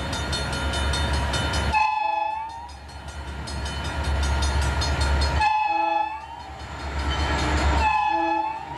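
Santa Fe diesel locomotive's air horn blown in three long blasts over a deep engine rumble, with a thinner, bending tone in the short gaps between the blasts.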